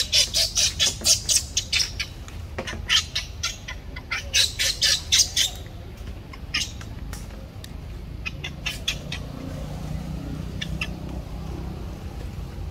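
Baby monkey crying in rapid high-pitched squeals, about four or five a second, in two runs of a couple of seconds each, then a few scattered squeals.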